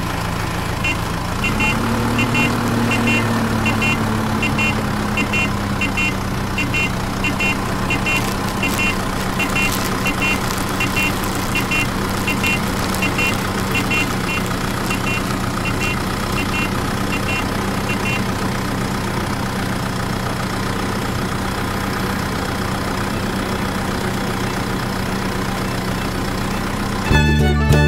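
Small DC toy motor driving the bottle drum of a homemade toy cement mixer, a steady hum that rises in pitch about a second and a half in as it picks up speed, then holds. A light regular ticking runs through the first two-thirds, and music starts just before the end.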